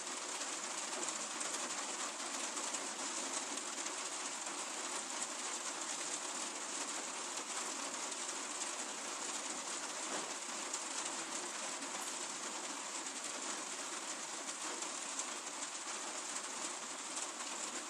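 Steady rain falling: an even hiss of many small drops at a constant level.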